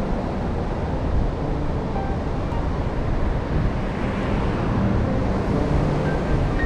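Steady low rumble of coastal outdoor ambience: wind, surf and road traffic. Quiet background music with a few held notes sits under it.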